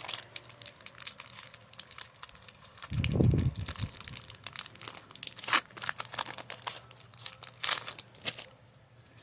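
Pokémon TCG booster pack wrapper crinkling and tearing as it is opened: a string of sharp crackles, with a dull low thud about three seconds in. It stops shortly before the end.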